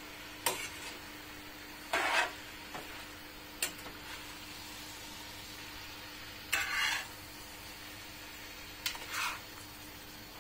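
Chicken stew sizzling in a sac pan while a utensil stirs it, scraping and clinking against the metal about five times, every couple of seconds.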